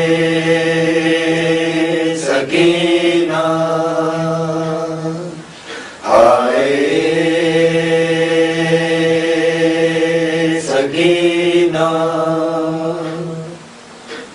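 Wordless chanting by a low male voice holding long, steady notes in two long phrases, with a short break about five and a half seconds in.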